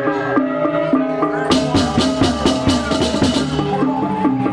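Balinese baleganjur gamelan playing: metal gongs and kettles in a repeating stepped melody with drums, and a run of fast crashing cymbal strokes from about a second and a half in that breaks off shortly before the end.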